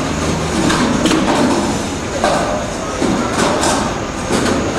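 Noisy hall din with background voices, broken by several sharp knocks and clatters.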